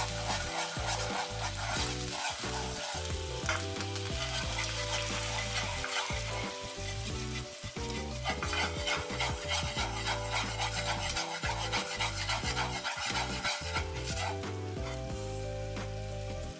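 Soy sauce and sugar bubbling and sizzling in leftover cooking oil in a nonstick frying pan as the sauce reduces over low heat. Wooden chopsticks stir and scrape through it.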